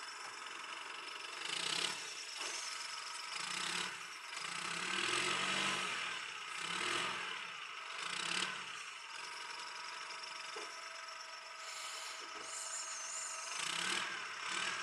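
Roadrunner hay squeeze's engine running and revving up in several surges, mostly in the first half, with mechanical scraping and rattling as the machine works the hay.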